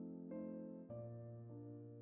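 Background music: slow, gentle piano notes played one after another.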